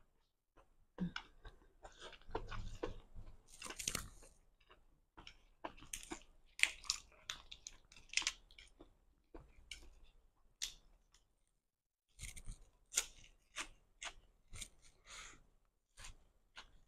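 Close-up chewing and crunching of food, with crisp fresh lettuce leaves being bitten near the end: a run of short crunches with a pause of about a second around the middle.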